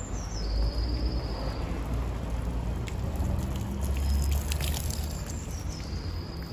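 Water from a Roman nasone, a cast-iron street drinking fountain, pouring from its spout and splashing onto the pavement, clearest about four seconds in, over a low rumble of city traffic.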